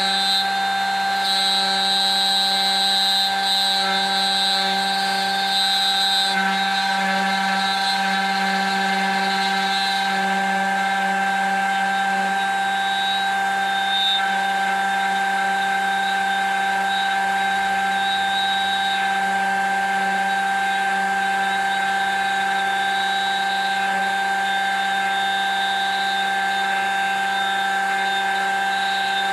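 Wood router on a hand-guided copying rig running with a steady whine, its bit cutting into a pine board as the carriage is moved slowly along its linear rails.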